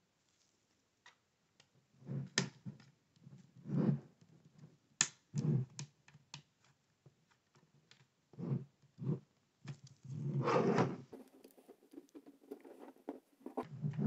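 Plastic bottom cover of a Lenovo Ideapad 1i laptop being pried off with a plastic pry tool: scattered sharp clicks and snaps as the cover's clips let go along the seam, mixed with duller scraping and knocks from handling the case.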